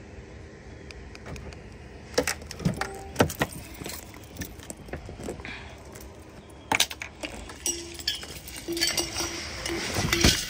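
Car keys jingling and a Mercedes-Benz car door being unlocked and opened while someone gets in: a scatter of sharp clicks and knocks, with a steadier noise building near the end.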